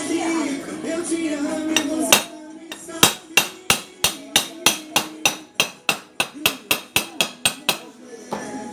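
Background music, then from about three seconds in a steady run of about seventeen sharp hammer blows, roughly three a second.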